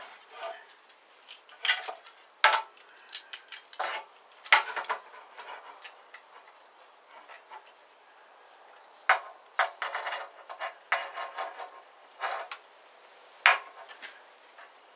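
Irregular clicks, taps and small metal clinks from hands adjusting a 9-inch Mastercraft bandsaw's upper blade guide and thrust bearing, with a wooden support block knocking against the saw. There is a quiet stretch about halfway through, then another run of clicks.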